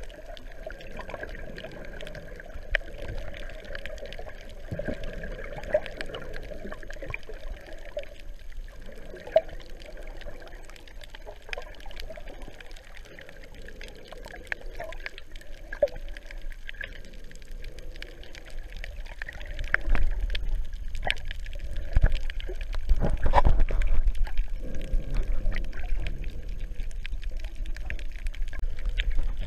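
Water heard through a GoPro's underwater housing while snorkeling over a shallow reef: a muffled, steady wash with scattered clicks. About two-thirds of the way through it grows louder, with low surging splashes as the camera moves near the surface.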